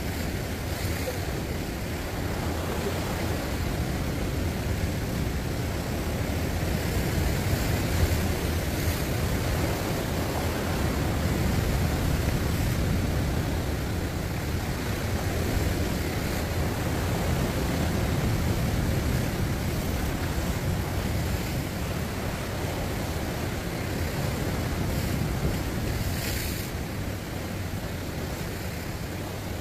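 Sea surf washing and breaking against a rocky shore, swelling and easing gently, with wind rumbling on the microphone.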